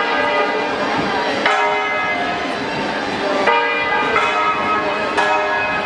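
Church bells ringing, a new stroke about every one and a half to two seconds, each left to ring on, the strokes at different pitches.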